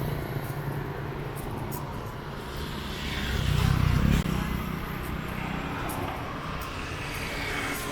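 Street traffic: engines of passing vehicles making a steady rumble, with one vehicle passing close and louder about three to four seconds in.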